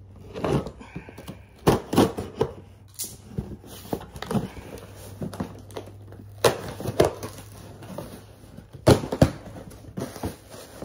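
Cardboard shipping box being opened by hand: tearing and crinkling of the cardboard, with irregular sharp knocks and thuds, the loudest about 2, 4½, 6½ and 9 seconds in.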